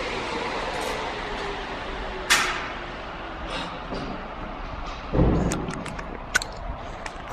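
Dragon boat paddle ergometer's air flywheel whirring as it coasts down, its pitch slowly falling and fading over the first second or so. Then a sharp knock about two seconds in, a heavy thud about five seconds in, and a few light clicks from the camera being handled.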